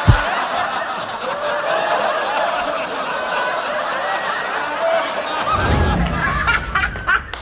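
Many people laughing together in a steady wash of overlapping chuckles and giggles, with a low rumble near the end.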